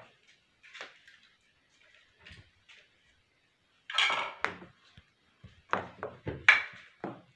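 Irregular scuffs, rustles and soft knocks of a cat pouncing and scrambling on a cloth-covered bed. The loudest scrabble comes about four seconds in, followed by a quick run of them near the end.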